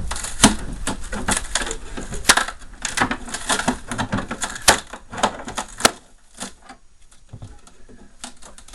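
Quick, irregular clicking, cracking and knocking of plastic and sheet-metal fridge parts being pried and pulled apart by hand. It is dense for about six seconds, then thins to a few scattered clicks.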